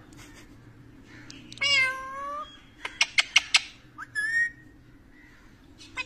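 Caged rose-ringed parakeet calling: a drawn-out, falling call about two seconds in, a quick run of about six sharp chirps around three seconds in, then a short call near the middle that ends on a held note.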